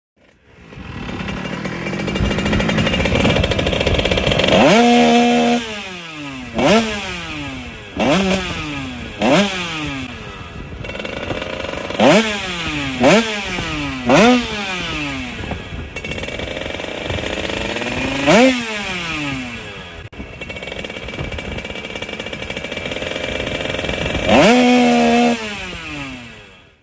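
Small 49cc two-stroke motorcycle engine revved again and again: a string of quick throttle blips, each pitch shooting up and falling back to a steady idle. The revs are held high twice, about five seconds in and near the end.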